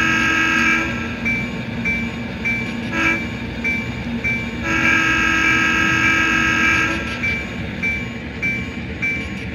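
Diesel locomotive air horn and bell from a sound-equipped HO-scale model of a Burlington passenger diesel. The horn gives a long blast, a short toot and a second long blast. The bell rings about twice a second over the engine's running rumble.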